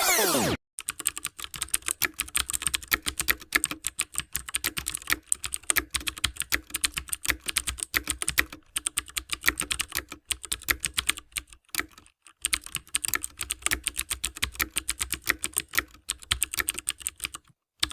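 Computer keyboard typing sound effect: rapid, uneven key clicks with a few brief pauses. It opens with the tail of a loud sweeping, warbling effect that cuts off about half a second in.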